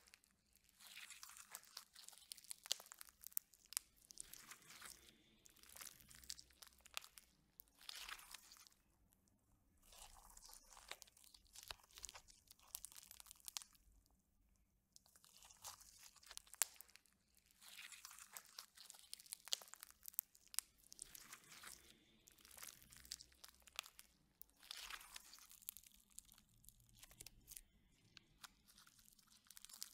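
Foam-bead slime squeezed and kneaded by hand, its beads crackling and popping in bursts of crunchy clicks, with short pauses between squeezes.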